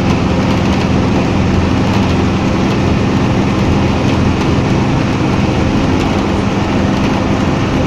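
Intercity bus's diesel engine and road noise, running at a steady speed with a constant low hum.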